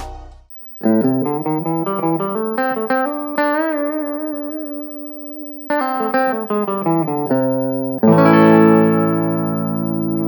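Electric guitar played through an Orange Crush 20RT practice amp: quick runs of single picked notes, one held note bent with vibrato, then a strummed chord about eight seconds in that is left ringing.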